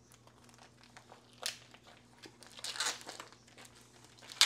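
Thin vacuum-sealed plastic pouches crinkling in a few short bursts as hands pull them apart and peel them open, with one sharp rip of plastic near the end.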